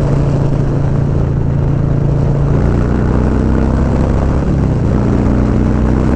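Harley-Davidson Low Rider S V-twin running hard at highway speed through a TBR 2-into-1 exhaust that has not yet been tuned for, with wind rush over the microphone. The engine note changes about two and a half seconds in.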